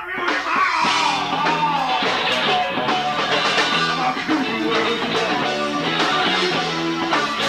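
Live rock band playing a song: guitar, bass guitar, drums and bongos, with a melody line bending in pitch near the start.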